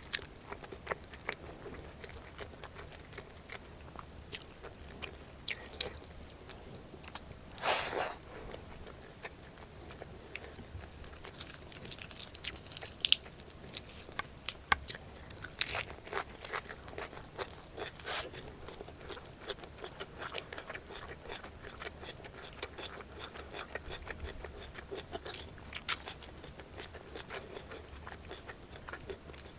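A person eating close to the microphone, chewing a meal of fish curry, rice, salad and papad, with many short sharp crunches and clicks scattered through and one longer crunch about eight seconds in.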